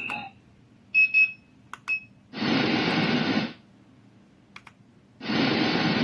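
A BatdTech alarm-clock lamp's speaker gives a few short electronic beeps as its buttons are pressed. Then comes a steady hiss about a second long, and the hiss starts again about five seconds in.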